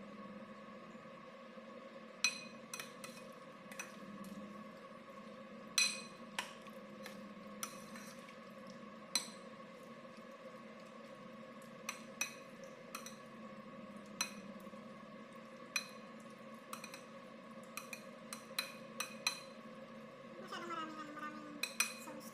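Metal spoon stirring macaroni and béchamel sauce in a bowl, clinking against the bowl's side at irregular intervals, each clink ringing briefly.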